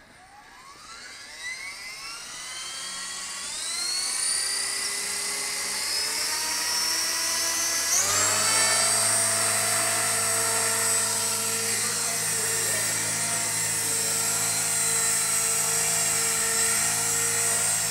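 Electric RC helicopter spooling up. The whine of the motor and rotor rises steadily in pitch over the first few seconds, jumps higher about eight seconds in, then holds a steady high whine at flying speed.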